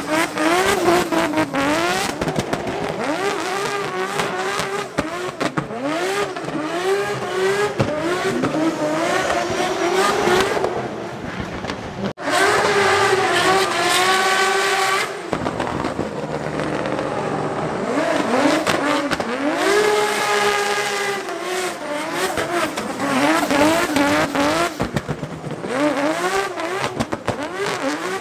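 Drift cars on track: engines revving hard and falling back again and again as the throttle is worked, over tyre squeal. The sound drops out for an instant about twelve seconds in.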